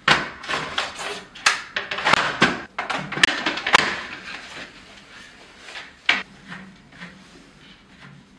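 Skis clacking and knocking against each other as they are handled in a wall rack. The knocks come thick and fast for the first few seconds, then thin out, with one sharp knock about six seconds in.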